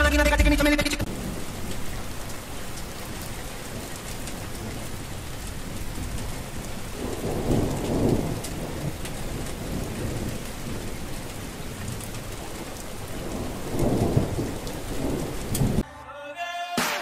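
Music cuts off about a second in, giving way to steady rain with two rolls of thunder, one around the middle and one near the end.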